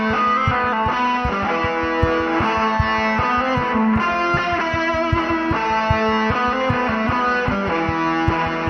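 Outro music: distorted electric guitar over a steady, fast beat.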